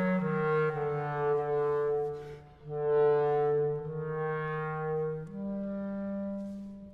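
Solo clarinet playing slow, sustained notes low in its range. There is a short break about two and a half seconds in, and a higher note is held near the end.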